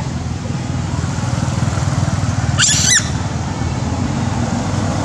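A brief, squeaky high-pitched animal call, a quick run of rising-and-falling notes, about two and a half seconds in, over a steady low rumble of road traffic.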